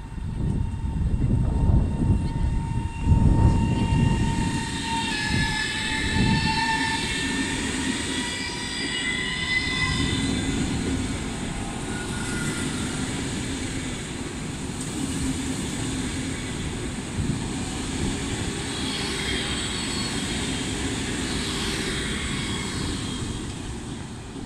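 Pendolino ED250 electric multiple unit pulling away and rolling past close by: a steady rumble of wheels on rail, loudest in the first few seconds, with high whines from its electric traction equipment that shift in pitch as it accelerates, coming twice as different cars go by.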